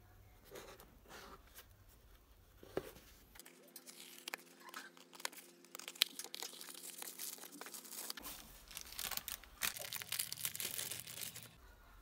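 A craft knife slitting the packing tape on a small cardboard box, then the parcel and its plastic packaging being opened: a few seconds in starts a run of tearing, crackling and crinkling with scattered clicks, one sharp click about halfway through.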